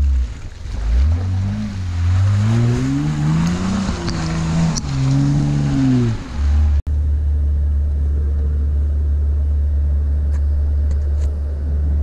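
Honda Ridgeline's V6 engine revving up, its pitch climbing over about three seconds and then falling away. After an abrupt cut comes a steady low rumble, with a few sharp knocks near the end as a hand handles the door-mounted camera.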